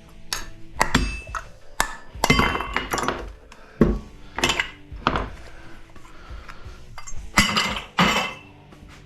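Hammer blows on a PTAC fan motor's metal housing to knock the copper stator loose: about a dozen uneven, ringing metal clanks, loudest near the end.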